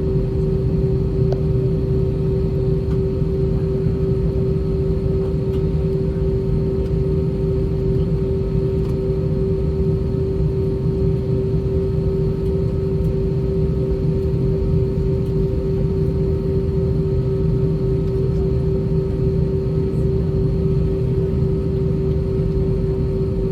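Steady cabin drone of an Airbus A320-232 on the ground, its IAE V2500 engines turning at idle thrust, with a constant hum tone over a low rumble.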